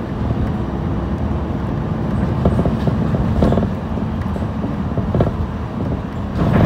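City bus running along a street, heard from inside the passenger cabin: a steady low engine and road rumble with a few short knocks, growing louder near the end.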